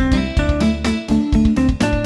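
Upbeat background music with plucked guitar notes and a steady beat.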